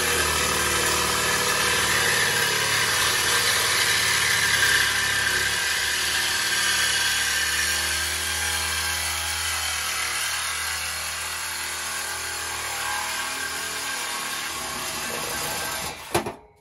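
Reciprocating saw (Sawzall) cutting through the Tahoe's exhaust pipe to free the stock muffler, running steadily as it saws. It stops about sixteen seconds in, followed by a sharp knock.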